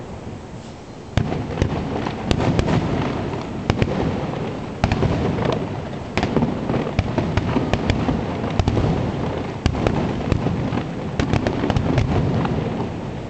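Aerial fireworks display: many overlapping shell bursts, with deep booms and sharp cracks following one another without a break. It gets louder about a second in.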